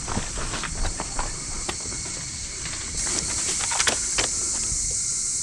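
Insects buzzing in a steady, high-pitched drone that swells louder about three seconds in and drops back near the end, with scattered clicks and rustles through it.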